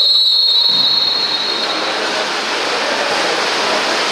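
Water polo referee's whistle: one long, high blast of about two seconds that starts sharply and stops about two seconds in. Under it runs the steady rushing noise of the pool water.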